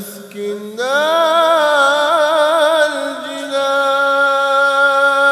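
Nazam, an Islamic devotional chant, sung as a single melodic line. The voice slides up into a new note about a second in and wavers through an ornamented run. From about three and a half seconds it holds one long steady note.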